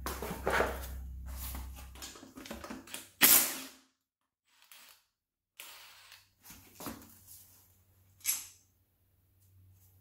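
Handling noise of a manual transmission case being turned over and set down on wooden 2x4 blocks on a plastic drip tray: scraping and knocking, with one loud thump about three seconds in, then a few scattered clicks and knocks.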